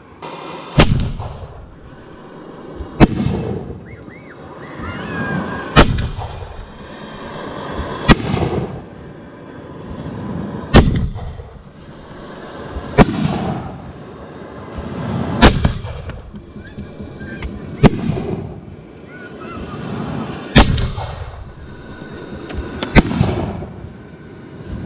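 Aerial fireworks going off in a steady series: about ten sharp bangs, one every two and a half seconds or so, each followed by a rumbling echo.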